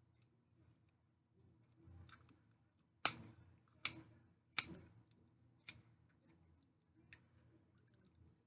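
Kitchen shears snipping through raw chicken skin: about six sharp snips, the three loudest coming in quick succession near the middle.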